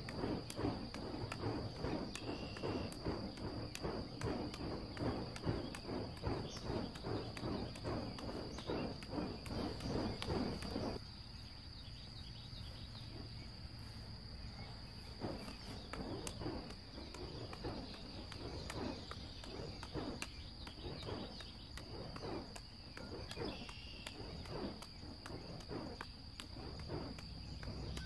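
Burning fire-juggling torches whooshing as they spin through the air in a steady juggling rhythm, several whooshes a second. About eleven seconds in, the whooshes drop to quieter and sparser.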